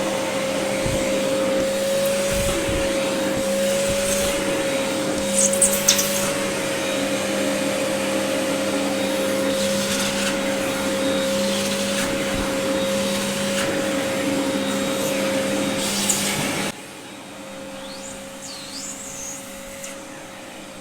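Vacuum cleaner running with a steady, high-pitched motor hum. About three-quarters of the way through it drops suddenly to a much quieter hum.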